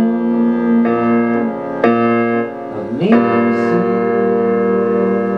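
Electronic keyboard played with a piano sound: held chords, with a new chord struck about one, two and three seconds in.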